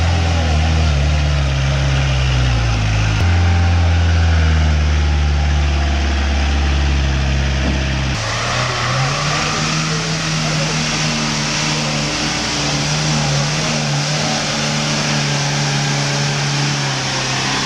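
Off-road 4x4 vehicle engines running and revving. The engine note changes abruptly twice, about three and eight seconds in.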